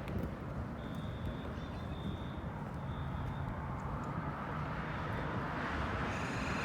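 Road traffic: a steady rumble, with a passing vehicle's tyre noise growing louder over the last couple of seconds as it approaches.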